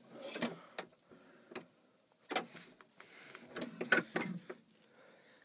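Irregular clicks, knocks and rustles of handling: the camera being moved and things bumped or gripped, in a few scattered clusters with quiet gaps between.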